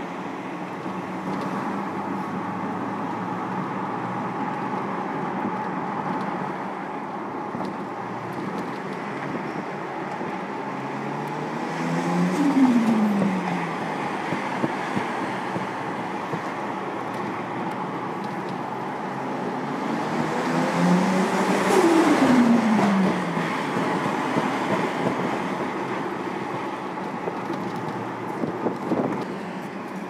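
Tuned 840 bhp Nissan Skyline R34 GT-R accelerating hard twice, about 12 and 22 seconds in. Each time the engine note swells and climbs, then drops steeply in pitch, over a steady background of engine and road noise. A short sharp crack comes near the end.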